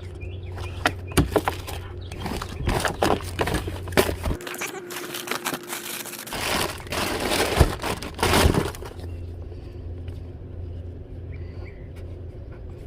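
Rummaging through a storage bin by hand: items clatter and plastic crinkles in a quick run of knocks and rustles that dies down about nine seconds in, with a steady low hum underneath.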